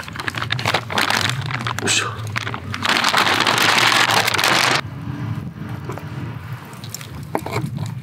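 Plastic zipper bag crinkling and rustling as raw beef-tongue scraps are handled into it. A dense, louder rustle about three seconds in stops abruptly near five seconds, leaving quieter handling sounds.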